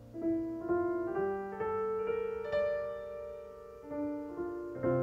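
Background score: a slow piano melody of single notes, each left to ring and fade.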